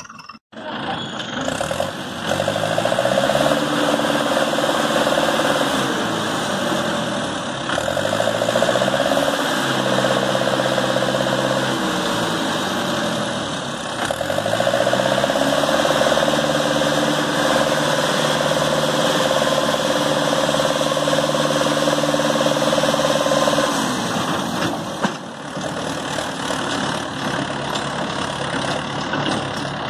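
Mahindra tractor's diesel engine revving up under load, holding high, then dropping back, three times over, as it pulls through mud. After the last surge it settles to a lower, steadier run near the end.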